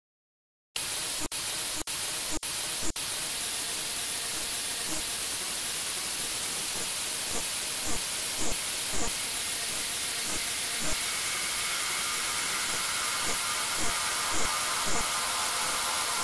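Electronic music intro made of a steady hissing noise that cuts out briefly four times near the start, overlaid from about seven seconds with irregular low thuds that drop in pitch, and faint sustained tones entering around eleven seconds.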